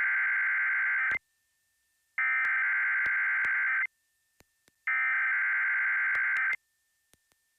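Emergency Alert System SAME header: three identical bursts of buzzy digital data tones, each about a second and a half long with about a second's silence between them, encoding the high wind warning that is then read out.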